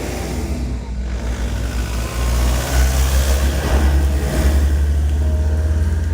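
Monastery belfry bells ringing as steady, sustained tones, partly covered by a loud low rumble that swells about two seconds in and stays strong through the middle.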